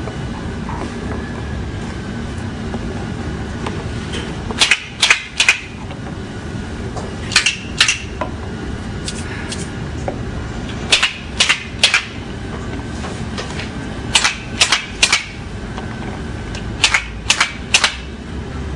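Montessori cardboard sound cylinders shaken by hand, their contents rattling in short shakes of three or four strokes. There are five such shakes a few seconds apart, as cylinders are compared by sound to find a matching pair. A steady hum runs underneath.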